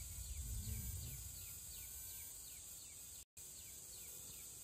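Outdoor riverside ambience: a steady high insect drone with repeated short falling chirps, about three a second. A low rumble sounds in the first second or so, and the audio drops out completely for a moment a little after three seconds in.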